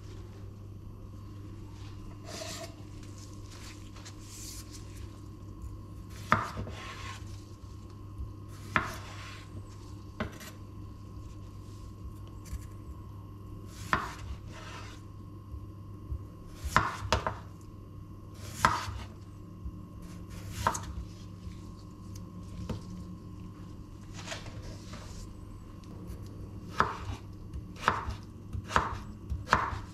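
Chef's knife slicing through a potato and knocking on a bamboo cutting board, a sharp knock every few seconds that comes quicker near the end, over a steady low hum.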